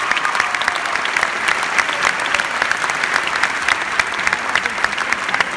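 Large theatre audience applauding steadily, a dense patter of many people clapping at once for a curtain call.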